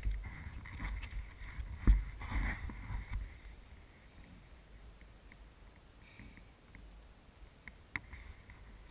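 Low rumbling bumps of wind and handling on a handheld action camera's microphone, with a sharp knock about two seconds in. After about three and a half seconds it settles to a faint steady outdoor hiss, with a single click near the end.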